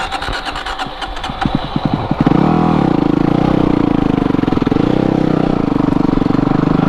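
Yamaha WR250R's 250 cc single-cylinder four-stroke engine chugging at low revs, its separate firing beats coming faster. About two seconds in it opens up to a loud, steady run under throttle as the bike pulls away.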